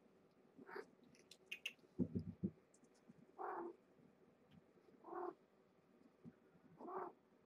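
A cat meows three times, short meows about two seconds apart. Before them there are a few light clicks and a brief cluster of low thumps, the loudest sound here.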